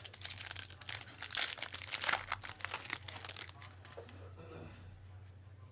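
Foil wrapper of a trading-card pack being torn open and crinkled: a dense crackle for about three and a half seconds that then dies down.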